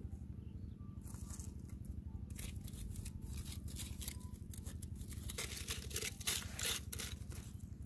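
Dry sticks scraping and clicking through charcoal and ash in a fire pit, a run of short scrapes that grows busier near the end, over a steady low rumble.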